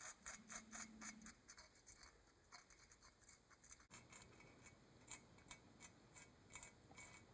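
Faint, irregular scratching and ticking of a small hand tool working the surface of a ceramic mug, several light strokes a second.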